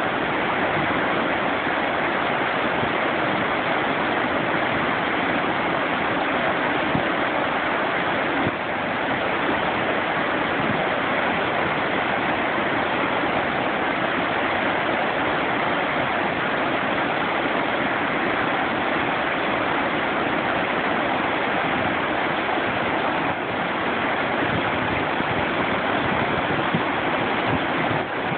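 River rapids rushing over and around boulders, a steady, loud whitewater noise.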